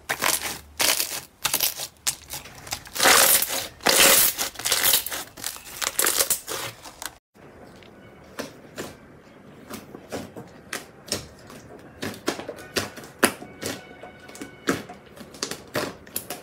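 Hands pressing and squeezing clear pink slime full of air bubbles, with loud, dense crackling and popping. After an abrupt cut about seven seconds in, thick mint-green slime in a glass bowl is stretched and poked, giving quieter, scattered clicks and pops.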